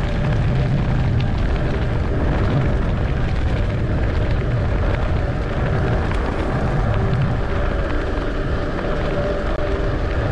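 Wind buffeting the microphone of a handlebar-mounted camera on a moving bicycle, mixed with road rumble: a loud, steady rush with a heavy low rumble and a faint steady hum.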